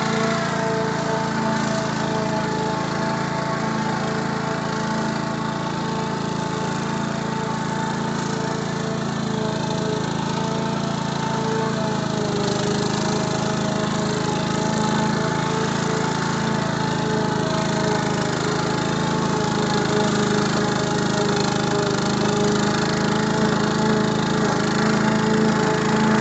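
Small petrol lawn mower engine running steadily. Its pitch drops slightly right at the start and eases down a little again about twelve seconds in.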